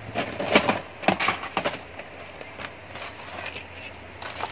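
Clear plastic jewellery boxes and plastic wrapping being handled: several sharp clacks and rustles in the first two seconds, then a quieter steady background.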